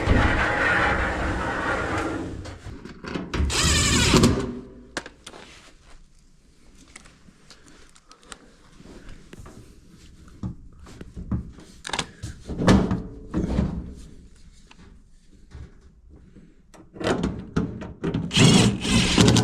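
Clunks, knocks and scraping of parts being handled as a Whirlpool Duet front-load washer is put back together, with the drum being worked back into its bearing. The loudest bursts come about four seconds in and again near the end.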